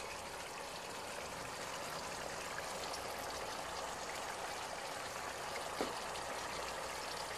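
Pork in shrimp-paste sauce simmering in a pan: a steady bubbling hiss, with one light tap about six seconds in.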